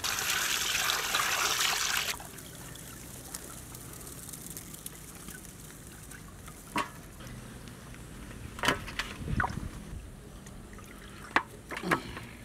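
Water poured from a jerry can splashing over whole raw chickens for about two seconds, then stopping. After that come a few scattered clicks and knocks as the washed chickens are handled in a metal basin.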